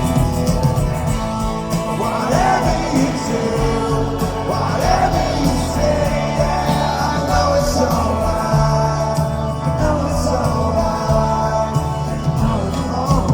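Rock band playing live, with a singer's voice over the sustained band sound.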